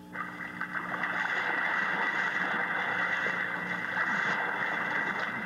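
Steady rushing noise that starts suddenly, with a faint low hum underneath.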